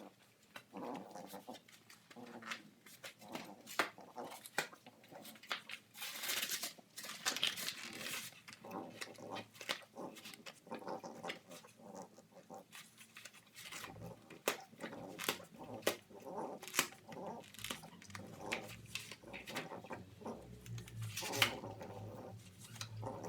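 French bulldog puppy chewing and ripping cardboard with its teeth: a busy run of sharp crackles and snaps, with longer tearing rips about six seconds in and again near the end, along with the puppy's own noises.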